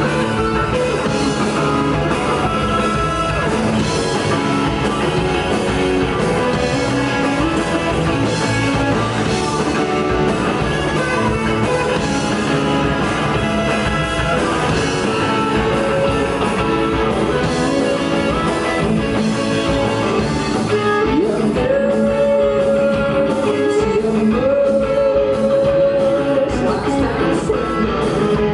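Rock band playing live: electric guitars, bass guitar and drum kit together. About two-thirds of the way through, a lead line slides up into long held notes, then steps up to a higher held note.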